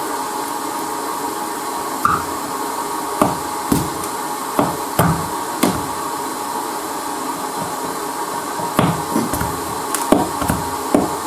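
Steady hiss of a hot-air rework tool blowing at the phone's glued glass back, with a faint steady tone in it. Over it, light clicks and knocks as a rubber suction cup is pressed onto the glass and worked with the fingers to try to lift the back.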